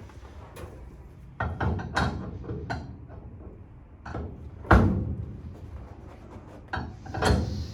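Knocks and thumps from a chiropractic table as a patient is moved and positioned on it, a cluster in the first few seconds, the loudest thud a little past halfway and another near the end.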